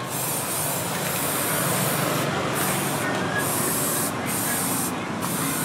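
Aerosol spray can hissing as it coats a steel knife blade. The spray runs steadily, with a few short breaks in the hiss from about two seconds in.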